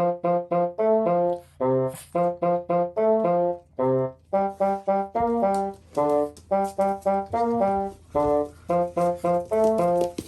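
Upbeat background music: a bouncy, staccato brass-like melody of short notes.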